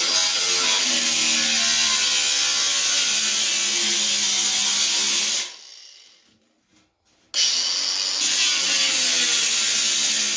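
Cordless angle grinder cutting through black steel stove pipe: two runs of steady grinding, about five seconds and then about three, with a short pause between.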